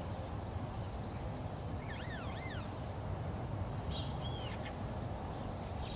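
Birds chirping and calling: short high chirps scattered throughout, with quick swooping up-and-down notes about two seconds in and a falling call around four seconds, over a steady low background rumble.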